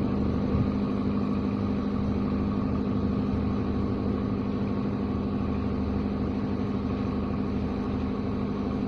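Steady engine hum, idling at an even pitch with a low drone and no change in speed.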